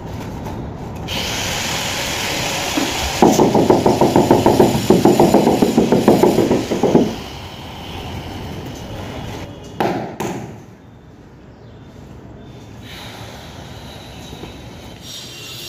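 Hand-held power tool working on stone: a steady high hiss for several seconds with a rapid pulsing of about five beats a second in the middle, then a few short knocks about ten seconds in.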